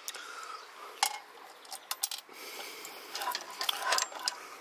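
Small metal clinks and taps of a hand tool on a wiring terminal as a wire is undone: one sharp clink about a second in, then a cluster of quicker clinks near the end.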